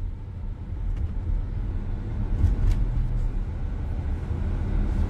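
Steady low rumble of a car, picked up through a phone's microphone.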